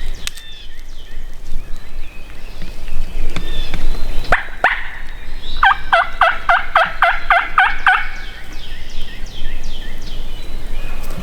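Wild turkey calling: two sharp notes about four seconds in, then a rapid run of about ten notes lasting a couple of seconds. Songbirds chirp faintly.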